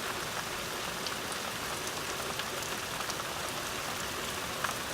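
Steady rain coming down: an even hiss of rainfall with scattered individual drops ticking on a surface.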